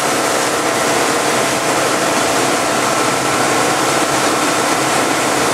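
Tow boat's engine running steadily at speed, with a loud rush of wake water and wind heard from aboard the boat.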